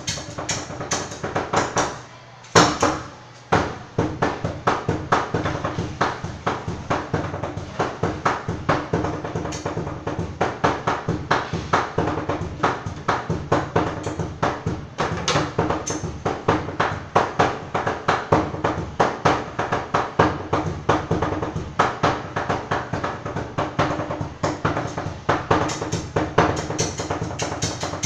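Cleavers chopping sisig on a chopping board in a fast, steady rhythm of sharp knocks, several a second, with a short pause about two seconds in.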